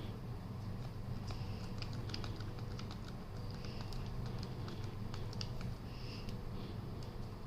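Small irregular clicks and taps from handling the laptop and its parts, over a steady low hum.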